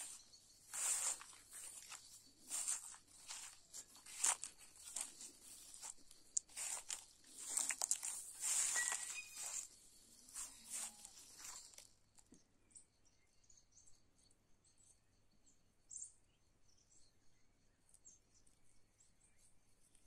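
Footsteps crunching and rustling through long grass for about the first twelve seconds, then it falls quiet apart from faint scattered ticks.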